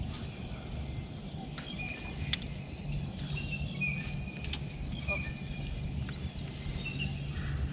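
Songbirds calling from the shore, one short high phrase repeated every few seconds among other chirps, over a steady low hum and a few sharp clicks.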